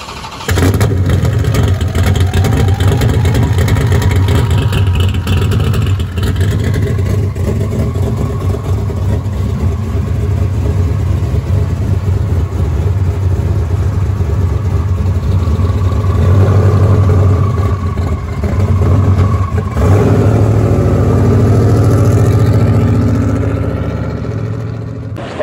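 Twin-turbocharged Hemi V8 of a 2004 Dodge Ram Rumble Bee running at idle through its side-exit exhaust, a steady low rumble. It gets louder for a few seconds at about 16 and again at 20 seconds in, then eases off as the truck drives away near the end.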